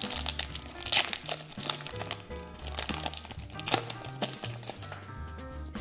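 Foil wrapper of a Pokémon card booster pack crinkling and crackling as it is torn open and the cards are pulled out, with the sharpest crackles about a second in and again near four seconds. Background music with a steady bass line plays underneath.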